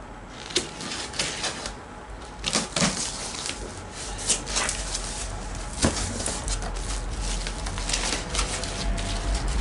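Utility knife slicing through the tape and cardboard of a shipping box, then the cardboard flaps being pulled open and the packing and paper handled: a run of sharp clicks, scrapes and rustles.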